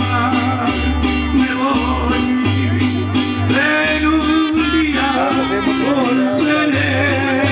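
Live mariachi-style trio playing: acoustic guitars strummed in a steady rhythm over deep guitarrón bass notes, with a melody line above.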